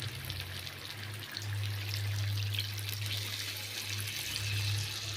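Water being poured into the chicken curry in the pan, a steady trickling hiss that gets a little louder about a second in, over a low steady hum.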